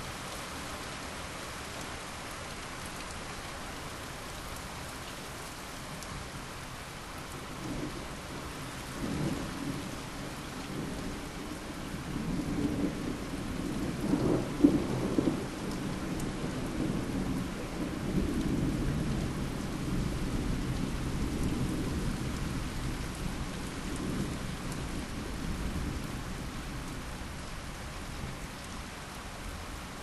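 Steady rain with a long roll of thunder that builds about a quarter of the way in, peaks with a sharper crack near the middle, and rumbles on before fading.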